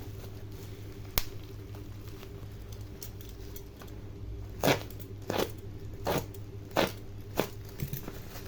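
Layered packaging around a laptop RAM module being unwrapped by hand: about six short crinkling, crackling noises, one a second in and the rest in the second half, over a steady low hum.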